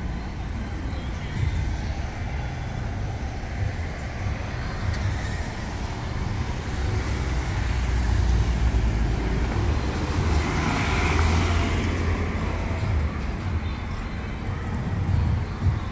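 Road traffic with cars driving past. One passes close around the middle, its engine and tyre noise swelling and then fading.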